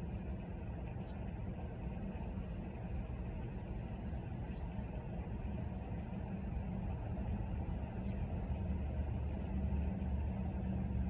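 Steady low vehicle rumble with a low hum, even throughout.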